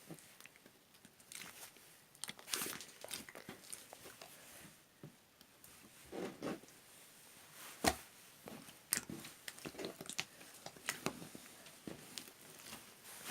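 Irregular small crunching and clicking sounds close up, with a few sharper ticks.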